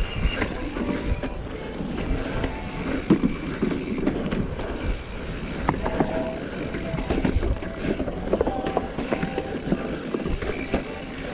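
Mountain bike riding a dirt singletrack: tyres rolling over dirt and roots with irregular knocks and rattles from the bike over bumps, and a low rumble from wind.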